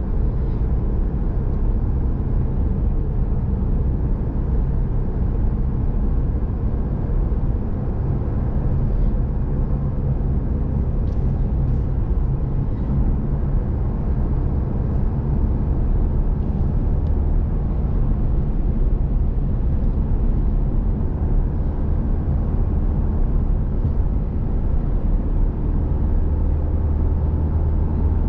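Steady road and engine noise of a moving vehicle heard from inside the cabin: a constant low hum with tyre rumble, holding an even speed.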